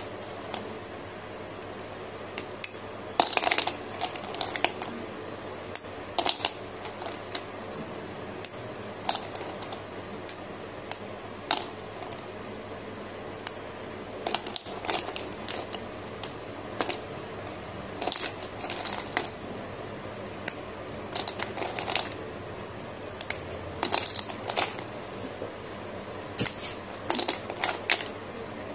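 Slate pencils clicking and clattering against one another as they are handled and shifted in a bowl: irregular sharp clicks, many in small clusters every two or three seconds.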